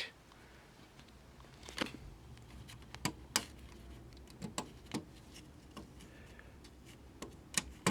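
Scattered light clicks and knocks from handling a portable television set, about eight sharp ones spread irregularly, over a faint low hum of room tone.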